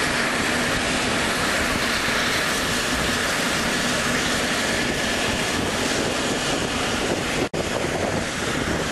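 Eurocopter EC135 rescue helicopter running on the ground: a loud, steady rush of rotor and turbine noise with a faint high turbine whine held on one pitch. The sound cuts out for a split second about seven and a half seconds in.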